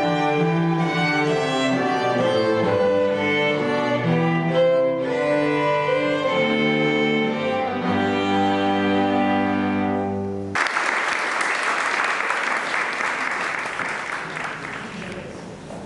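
String trio of two violins and a cello playing a classical piece, closing on a held final chord about ten seconds in. Audience applause breaks out right after and fades away near the end.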